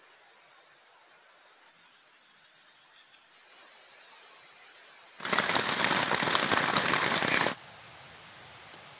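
Rainforest insects trilling in steady high tones, changing to a lower insect note about three seconds in. About five seconds in, a loud, dense crackling hiss cuts in. It lasts about two seconds and stops abruptly.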